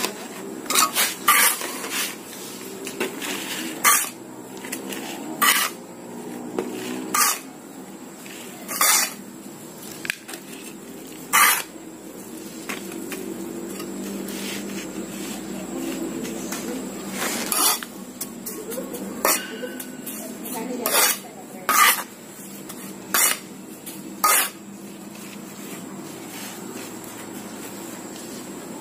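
A reused metal tin can clinking and knocking as potting soil is pressed down into it by hand. The sharp metallic knocks come at irregular intervals, some of them in quick pairs, over a low steady hum.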